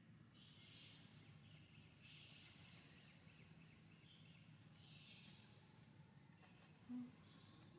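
Near silence of outdoor forest ambience: faint scattered high chirping over a low steady hum, with one brief low tone near the end.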